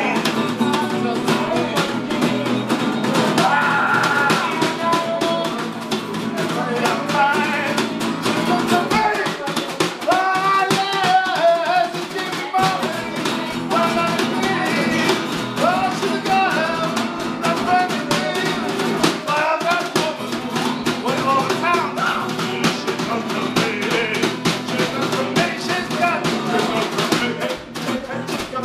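Improvised blues jam: an acoustic guitar played along with a snare drum beaten with sticks, and a man's voice singing over them.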